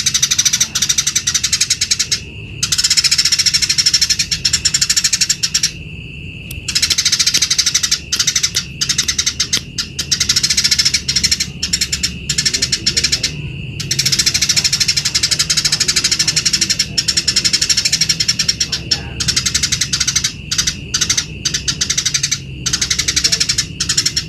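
A flock of house sparrows chirping, a dense run of rapid, sharp chirps that overlap one another and break off briefly a few times.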